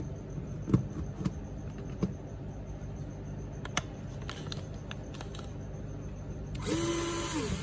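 Light metallic clicks and knocks of small parts and a Phillips bit being handled, then near the end a cordless driver's motor whirs for about a second, its pitch rising, holding and winding down.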